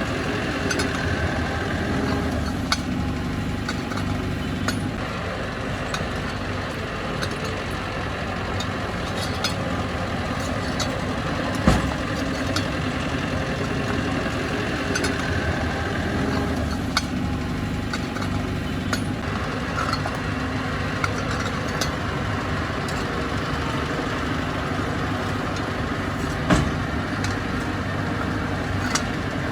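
Heavy diesel earthmoving machinery running steadily, with scattered clanks and two louder knocks, one about twelve seconds in and one near the end.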